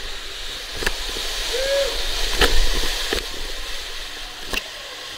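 Water rushing through an enclosed plastic tube water slide as a rider slides down it, with knocks and bumps against the tube walls, loudest about halfway. Near the end the rider shoots out into the splash-down runout pool.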